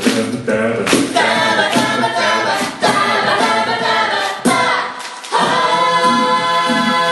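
Mixed-voice a cappella group singing in harmony through stage microphones over a vocal percussion beat. About five seconds in, the beat drops out and the voices hold a sustained chord.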